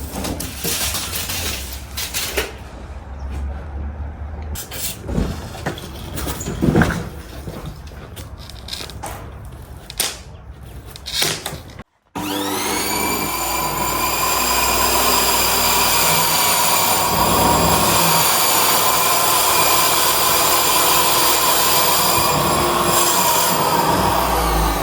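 Scattered knocks and clatter of work, then a motor starting and spinning up quickly to a steady high whine that holds.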